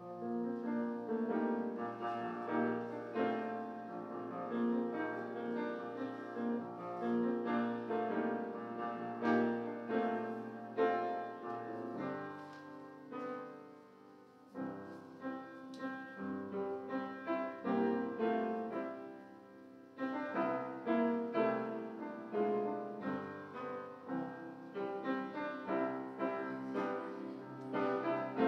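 Solo keyboard prelude music: slow chords and melody over sustained bass notes, thinning out briefly about halfway through and again a few seconds later.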